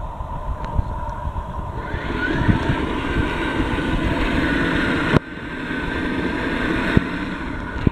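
Ride-on Power Wheels toy electric motor and gearbox running the tank's track on a bare-wire battery connection during a motor test. It starts about two seconds in, cuts off suddenly about five seconds in, then runs again more quietly.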